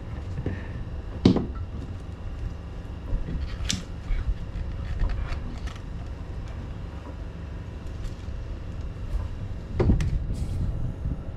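Scuba gear being handled as it is assembled: a regulator and BCD are fitted to a scuba tank, giving a few sharp clunks and knocks, the loudest about a second in and near the end, over a steady low rumble.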